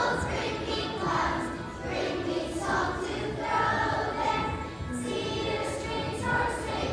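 A large choir of elementary-school children singing together, in phrases that swell and fall about once a second.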